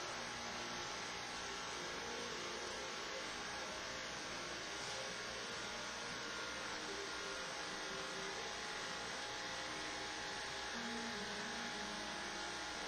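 Steady electrical hum with a hiss over it, even throughout, with no distinct sounds on top.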